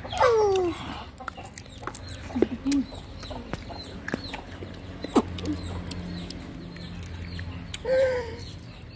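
Chickens clucking, with a loud falling call right at the start and another near the end. Sharp clicks are scattered between the calls.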